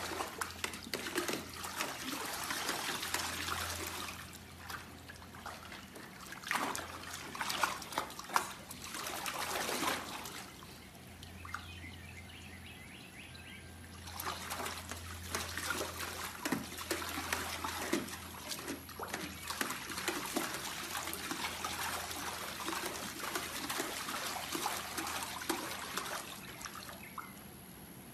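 Pug puppy splashing and pawing at the water in a shallow plastic kiddie pool, in irregular spells of sloshing and slapping, with quieter stretches about ten seconds in and near the end. A steady low hum runs underneath.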